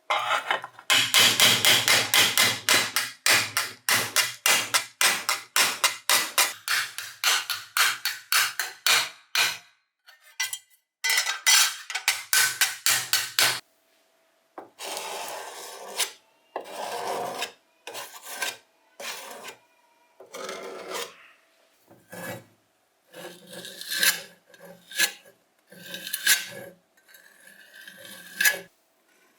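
Rapid back-and-forth hand strokes of an abrasive scraping and rubbing on a rusty bench grinder part, about three a second. After a pause about ten seconds in, the strokes come back in a short burst, then turn slower and spaced apart in the second half.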